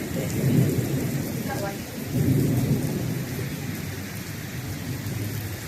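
Heavy rain beating down, with strong wind gusts buffeting the microphone in two loud low surges, one at the start and one about two seconds in.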